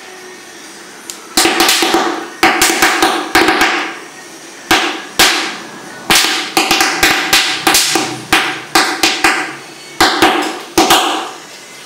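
HHO (oxyhydrogen) gas bubbles on the surface of a water bucket being lit with a hand-held igniter and going off as a rapid, irregular series of sharp, loud pops. Each pop has a short ring.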